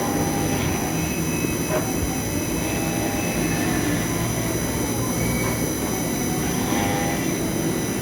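CNC engraving machine running, its spindle giving a steady high whine as the engraving bit cuts a brass plate, with lower tones that come and go.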